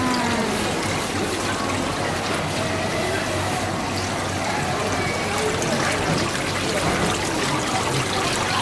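Water trickling and splashing steadily into live-crab display tanks from their circulation tubes.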